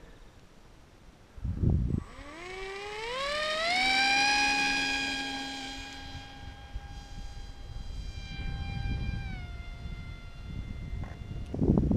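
An electric RC plane's 2205 brushless motor with a three-blade 5x4.5 propeller spools up into a whine that rises over about two seconds for takeoff. It then holds a steady high whine that dips slightly in pitch near the end and fades as the plane moves away. A short low rumble comes about a second and a half in, before the motor starts.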